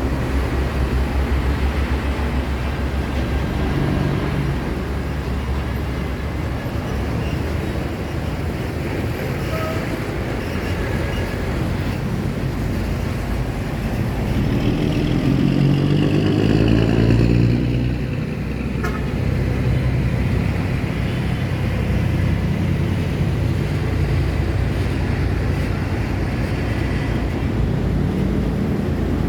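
City road traffic: a steady wash of engines and tyres as vehicles pass. A heavier engine goes by louder about fifteen seconds in.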